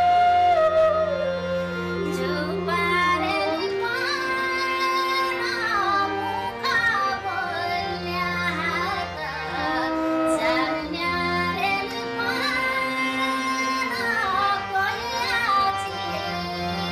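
Nepali deuda folk song: a female voice sings a high, ornamented melody with pitch slides over a steady low drone and instrumental backing.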